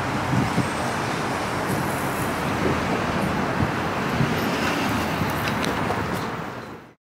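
Steady city street traffic noise, a constant wash of passing cars and trucks, which fades out quickly just before the end.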